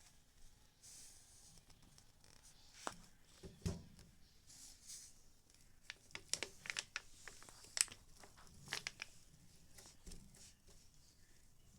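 Small plastic toys and packaging being handled: rustling and crinkling with a scatter of sharp clicks, busiest from about six to nine seconds in.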